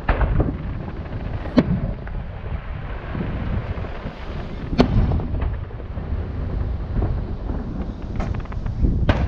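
Aerial firework shells bursting: several sharp bangs a few seconds apart, over a steady low rumble.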